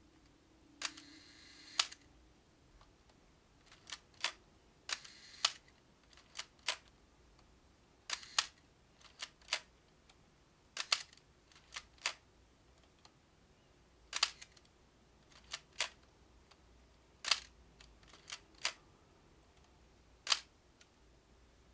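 Nikon F2 35mm SLR's mechanical shutter fired over and over, the shutter speed dial turned between shots. Each release is a pair of crisp clicks. The first two exposures are audibly long, about a second and half a second between the clicks, and the later ones are quick snaps.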